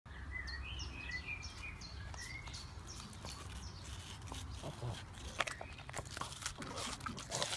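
Small birds chirp in the background for the first few seconds. Then a pug bites into a slice of watermelon and chews it, with irregular crunching and smacking clicks.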